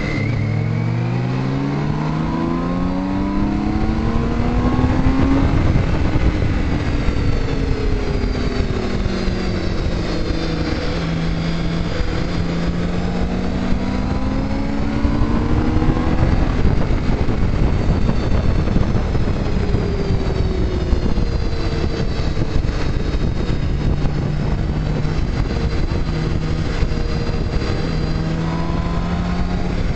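Motorcycle engine on the move: its pitch climbs for about five seconds under acceleration, drops back, climbs again, then holds steady at cruising speed. A constant rush of wind noise runs underneath.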